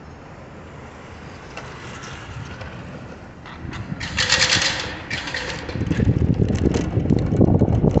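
Urban street traffic ambience, then a brief loud hiss about four seconds in. From about six seconds, the low rumble of wind buffeting the microphone as the electric bicycle gets moving.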